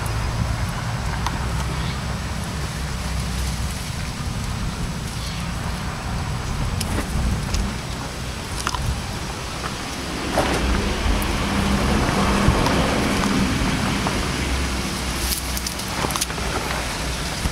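A cat chewing and crunching thin kolomikta kiwi vine twigs, with scattered sharp clicks and snaps over a steady low rumble. The crunching gets louder and busier for a few seconds about ten seconds in.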